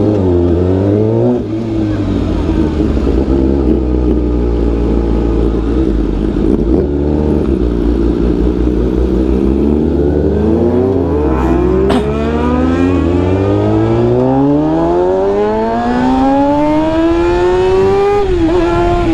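Vehicle engine running at low revs, then accelerating in a long rising pitch that dips briefly near the end and rises again as the vehicle pulls away.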